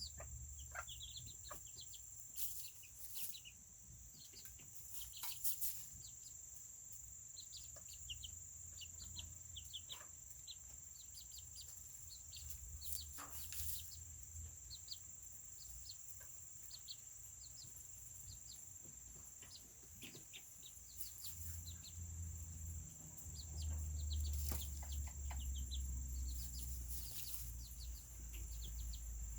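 Serama chickens clucking and peeping, with many short, high chirps scattered throughout, over a steady high-pitched whine and a low rumble.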